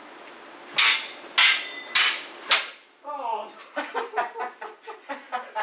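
Steel fencing sabre blades clashing four times: sharp, ringing strikes a little over half a second apart.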